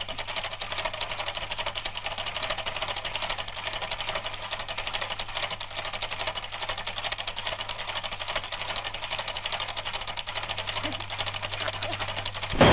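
Film projector running: a rapid, even mechanical clatter over a steady low hum, with one loud bang near the end.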